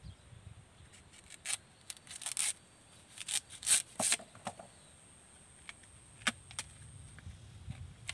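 Large knife cutting and stripping the tough outer husk from a fresh bamboo shoot: a series of short, sharp rasping slices and tears, most of them packed into the first half, the loudest a little under four seconds in.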